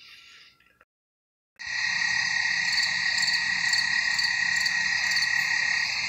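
A dense chorus of frogs calling steadily, with a high, even ringing note. It starts abruptly about a second and a half in, after a moment of dead silence.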